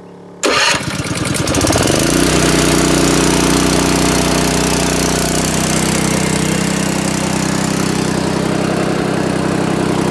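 Small Honda GX petrol engine on a gas roof pump, electric-started with its key switch: it turns over suddenly about half a second in, catches within a second or so and settles into steady running.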